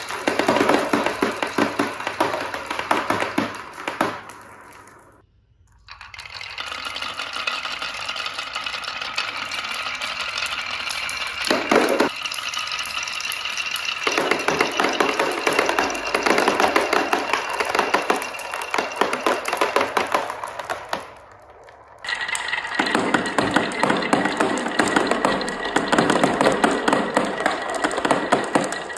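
Marbles rolling and clattering down a marble-run track, a dense stream of clicks and rattles. It fades out briefly twice, about five seconds in and again a little past twenty seconds.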